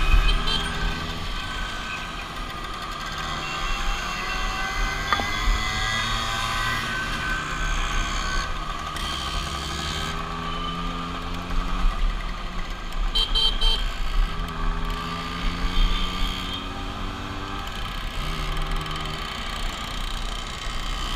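Vespa scooter engines running in a group ride, the pitch climbing repeatedly as the riders accelerate and dropping back between gears.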